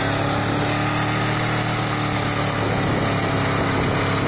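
Two Ford 4x4 pickups, a 1978 and a 2008, pulling against each other bumper to bumper, engines running hard at high revs with tyres spinning in the dirt. The sound is loud and steady.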